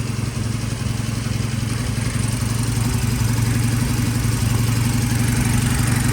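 Vintage British motorcycle engine idling steadily on its first start after repair, with its ignition timing freshly set and no unusual noises.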